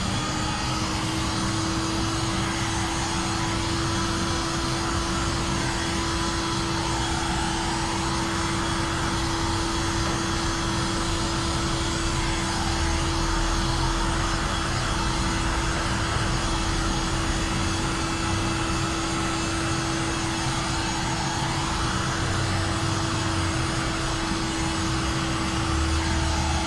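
Handheld electric heat gun running steadily: a constant rush of blown air with one steady hum from its fan motor. It is the kind of tool used to heat-shrink tint film to the curve of a windshield.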